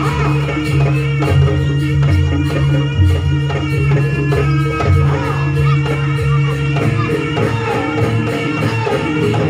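Loud music with a steady beat, accompanying a kucingan folk dance.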